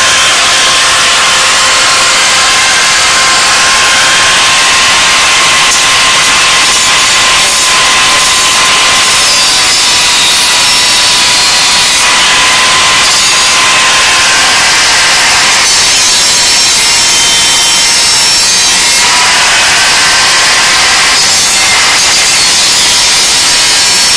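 A power tool cutting, running steadily with a high whine and a harsh, noisy edge; the texture shifts abruptly every few seconds.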